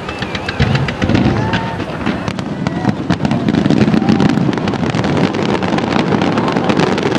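Aerial fireworks crackling: a dense stream of rapid sharp pops over a steady low rumble, getting a little louder about halfway through.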